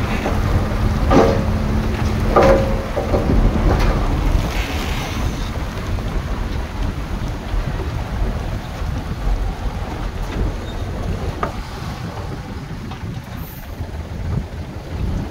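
Heavy diesel earthmoving machinery rumbling, with a few sharp metallic knocks in the first three seconds; the rumble eases off after about five seconds.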